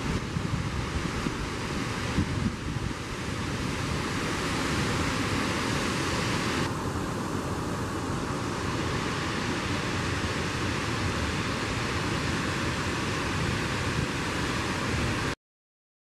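Waterfall crashing down rock into its pool, a steady dense rush of water that cuts off abruptly near the end.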